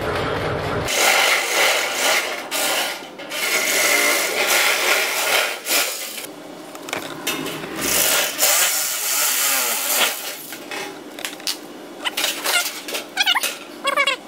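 Handheld electric sheet-metal shear cutting a curved line through flat steel sheet, running steadily with short pauses as it is guided along. Near the end the loose cut sheet flexes with a warbling metallic wobble.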